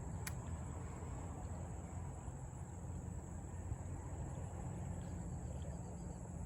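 Insects keeping up a steady, high-pitched drone over a low rumble, with a single sharp click just after the start.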